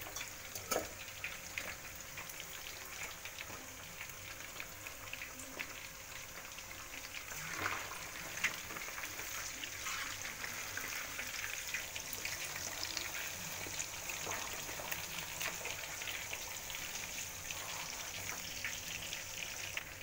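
Pre-braised (ungkep) chicken pieces deep-frying in a wok of hot oil. The bubbling oil gives a steady crackling sizzle, with a few louder pops, one about a second in and others around eight seconds in.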